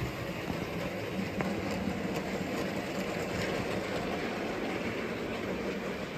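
OO gauge model diesel locomotive running along the layout track with a steady mechanical sound.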